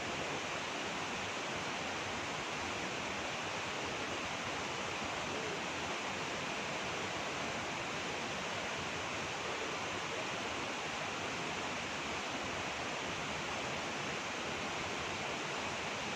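Steady rushing of water, an even hiss with no change over the whole stretch.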